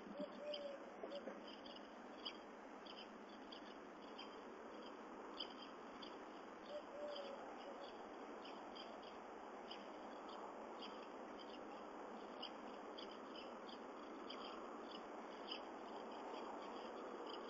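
Faint garden ambience: a steady hiss with a short high chirp repeating about twice a second, and a brief higher call near the start and again about seven seconds in.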